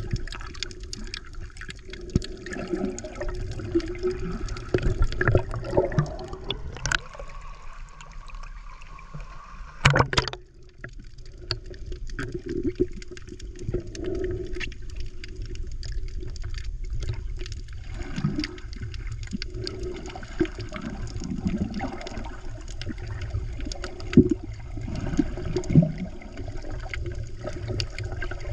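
Underwater sound heard through a GoPro action camera in its waterproof housing: a steady low rumble of moving water with gurgling bubbles and scattered clicks, and one brief loud burst about ten seconds in.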